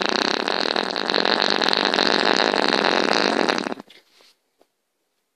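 A loud, harsh rasping buzz made of rapid pulses, which cuts off abruptly about four seconds in.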